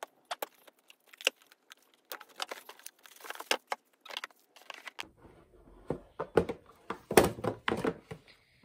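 Cardboard board-game box being opened by hand: a run of small crackles and scrapes as the top is worked free, then louder knocks and rubbing as the lid comes off and is handled, busiest in the last few seconds.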